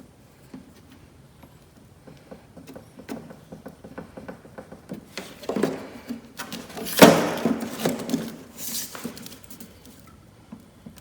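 Light tapping, scraping and rustling of hands and tools working on a sheet of plexiglass at a work table, with a sharp knock about seven seconds in and a couple of louder scrapes around it.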